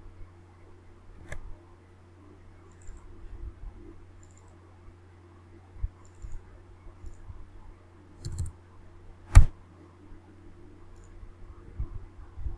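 Scattered computer mouse clicks and keyboard keystrokes, one click much louder than the rest about nine seconds in, over a faint steady low hum.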